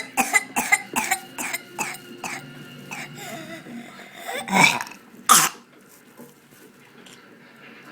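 Whooping cough (pertussis) coughing fit: about ten short, rapid coughs in quick succession over the first two and a half seconds. Two louder coughs or breaths follow at about four and a half and five seconds, then it settles.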